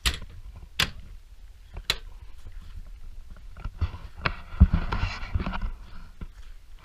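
Sharp knocks and clicks, three about a second apart, then a burst of clattering knocks and rustling lasting about a second and a half past the middle, from gear and compartment hardware being handled at the truck.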